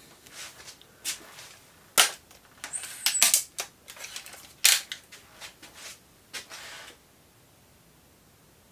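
A run of sharp mechanical clacks and clicks from a Gamo Swarm break-barrel air rifle being handled and cocked. The strongest come about two seconds in, around three seconds in and just before five seconds in, and the clicking stops at about seven seconds.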